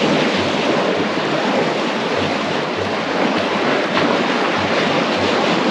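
Sea surf washing and breaking against a concrete breakwater, with steady wind buffeting the microphone.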